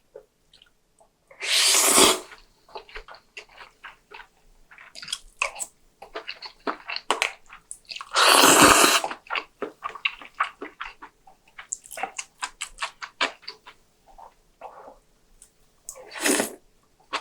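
Close-miked eating: wet mouth clicks and chewing, broken by three long, loud slurps of about a second each, of spicy seafood soup or noodles.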